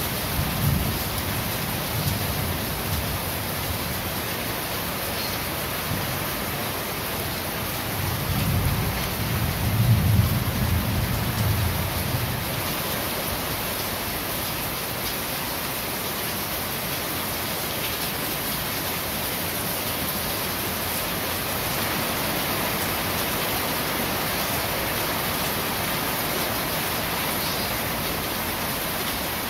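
Steady rain falling on a corrugated roof, with a low rumble of thunder that swells about eight seconds in and fades a few seconds later.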